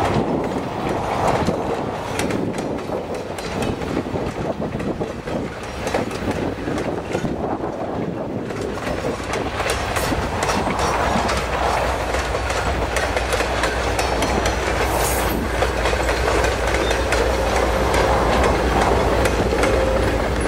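Diesel-hauled passenger train passing close by: its wheels click over the rail joints as the coaches roll past. In the second half a deep steady engine rumble builds as the trailing diesel locomotive comes alongside.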